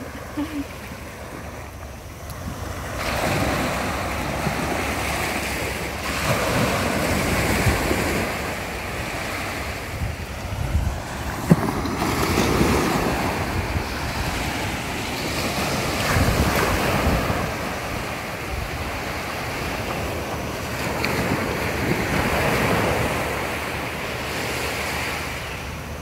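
Small waves breaking and washing up onto a sandy beach, the surf swelling and easing every few seconds, with wind buffeting the microphone.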